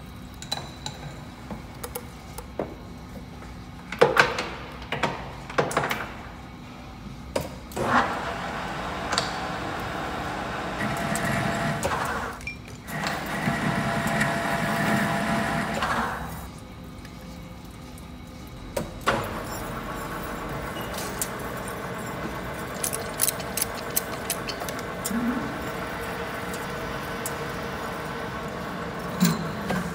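Hafco TM-1740G metal lathe running while a bore in a steel part is drilled and reamed, with clinks and knocks of tooling and chuck between cuts.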